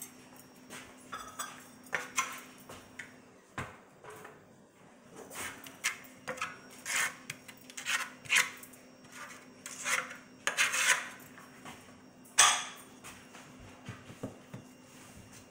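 Ceramic wall tiles clinking and scraping as they are handled, slid and pressed into thinset: a run of sharp clicks mixed with longer scrapes, busiest in the middle and with one loud scrape about twelve seconds in.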